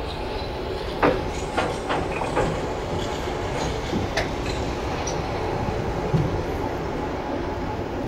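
Train rolling slowly over the track, a steady low rumble broken by a handful of sharp, irregular clanks and clicks as the wheels cross rail joints and points.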